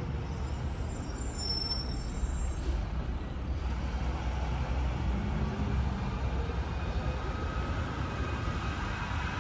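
Diesel engine of a garbage truck running, a steady low rumble.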